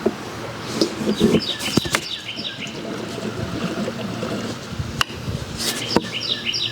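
Gasoline trickling from a can into a lawn mower's fuel tank, with a few sharp clicks. Birds chirp in short repeated phrases over it.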